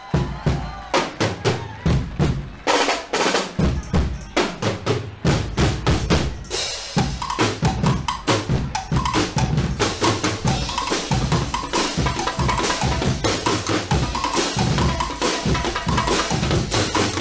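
Guggenmusik band's percussion section playing a fast drum passage on bass drums, snare drums and drum kit. The beating grows denser and fuller about seven seconds in.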